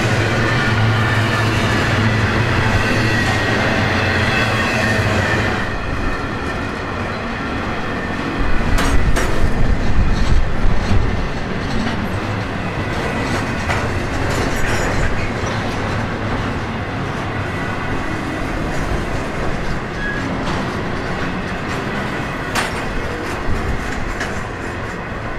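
Double-stack container cars and piggyback trailer cars of an intermodal freight train rolling slowly past: a steady rumble of steel wheels on rail with clicks over the rail joints, louder for a few seconds about a third of the way in.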